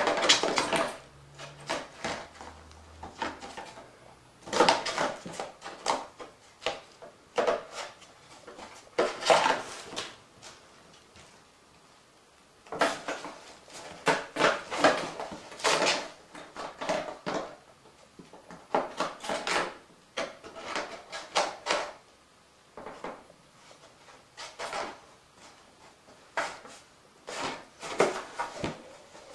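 Kittens playing on a bare wooden floor and in a cardboard box: irregular bursts of rustling, scrabbling and knocking, with short lulls between.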